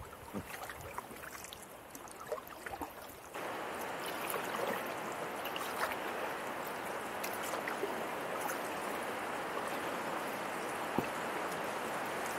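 River current rushing and rippling steadily around an inflatable packraft canoe. It is quieter with a few light ticks for the first three seconds or so, then the rush steps up suddenly and stays steady.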